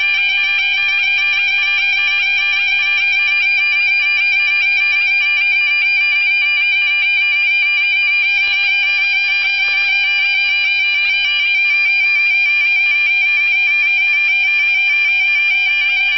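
Level crossing audible warning alarm sounding continuously: a loud electronic warbling tone with a fast, even pulse, the sign that the barriers are down and a train is approaching.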